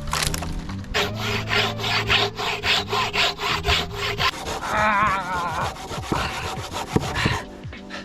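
Hand saw cutting through wood with quick back-and-forth strokes, about four a second, stopping a little before the end. Background music with held tones plays underneath.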